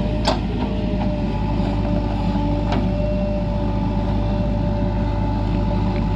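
Heavy diesel engine running steadily, with a sharp knock about a quarter second in and a second, lighter knock near three seconds.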